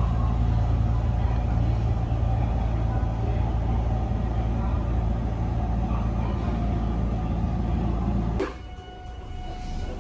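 Steady low rumble and hum of the HARUKA limited express electric train. It cuts off abruptly about eight seconds in, giving way to a much quieter sound with faint steady tones.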